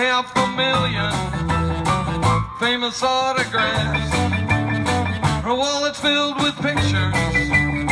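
Live rock-and-roll band playing an upbeat song with guitar over a steady drum beat.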